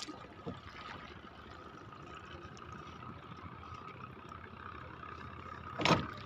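Water lapping around a small boat out on a lake, over a thin steady whine. A single short, much louder sound comes about six seconds in.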